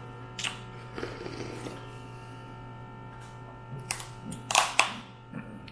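Mud crab being pulled apart by hand: a few short crackling snaps of shell, the loudest pair about four and a half seconds in, over a steady hum.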